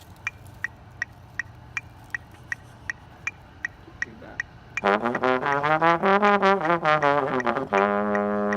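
A metronome clicking about two and a half times a second. About five seconds in, a brass instrument comes in loudly, slurring up and down through a run of notes, then holds one long steady note near the end.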